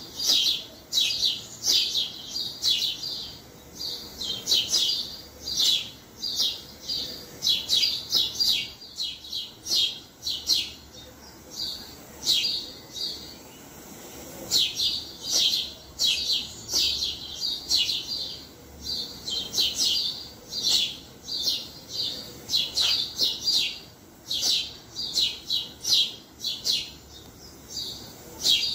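Sparrows chirping: a flock's many short, high chirps in quick runs, with brief lulls.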